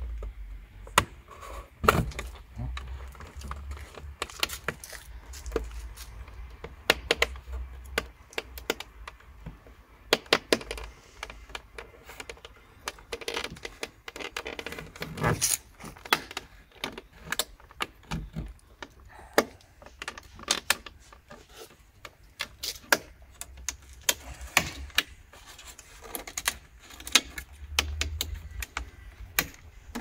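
Irregular plastic clicks, taps and scrapes as a plastic pry tool works the mirror glass and housing of a Toyota Prius side mirror loose, with a faint low rumble underneath at times.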